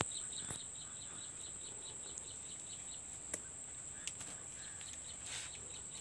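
Insects in the field giving a steady high-pitched drone, with a faster rhythmic chirping of about six pulses a second that fades out about a second in. A few faint clicks sound here and there.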